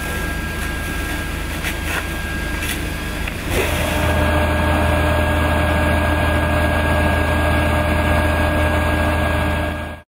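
Fire truck engine running steadily, a constant mechanical hum that gets louder about three and a half seconds in and cuts off suddenly near the end.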